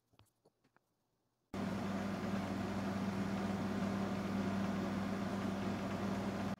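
A few light clicks of steel disc weights being set on a wooden workpiece, then about a second and a half in a steady machine hum with a rushing noise starts suddenly and runs on evenly.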